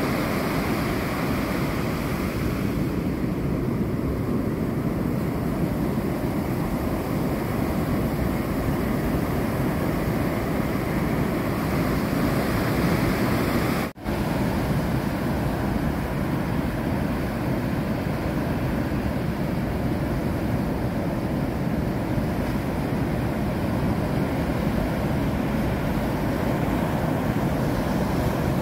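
Ocean surf breaking and washing up a sandy beach, a steady rush of water, with a momentary break in the sound about halfway through.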